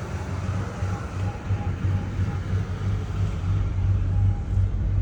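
2003 Ford Expedition engine idling steadily, with a faint, irregular high chirp just audible above the rumble. The owner says the chirp comes on only once the engine reaches operating temperature.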